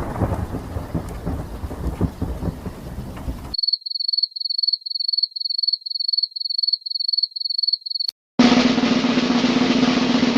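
A thunderstorm's rain and rumble stops abruptly about a third of the way in. About twelve rapid, high-pitched electronic beeps follow. After a brief gap, a snare drum roll starts and keeps going.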